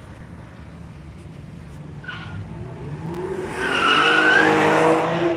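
A car driving past fast with its tyres squealing, starting about three and a half seconds in and lasting under two seconds, over the sound of its engine.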